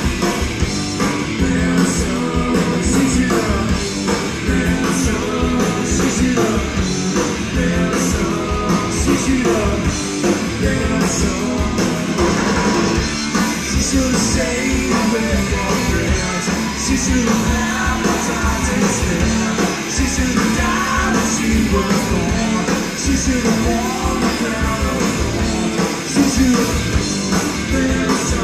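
Three-piece grunge band (distorted electric guitar, bass and drums) playing live, with singing, heard from within the crowd on an audience tape.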